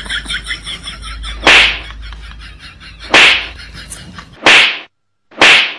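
Four whip-crack sound effects, each a short sharp swishing burst, coming a little closer together each time. A brief tail of laughter is heard before the first.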